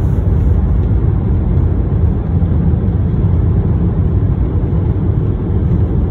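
Steady low rumble of a car driving on the road, heard from inside the cabin: tyre, engine and wind noise.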